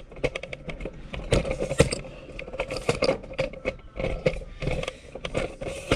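Handling noise: irregular clicks, taps and scrapes of hard objects being picked up and moved about, over a faint steady hum.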